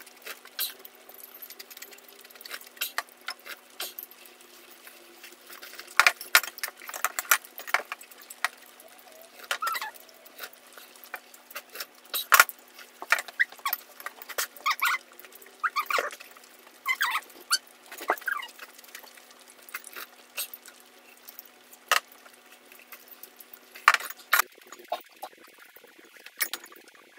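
Goat meat stew simmering and bubbling in a wide pot on a tabletop burner, with scattered sharp clicks and small pops over a faint steady hum.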